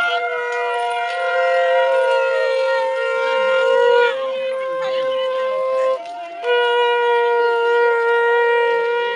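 Several conch shells (shankha) blown together in long, steady notes at slightly different pitches. They break off briefly about six seconds in, then start again.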